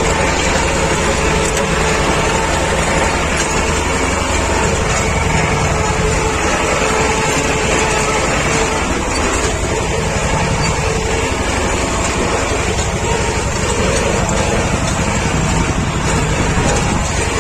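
T-25 Vladimirets tractor's two-cylinder air-cooled diesel running steadily as the tractor drives along mowing.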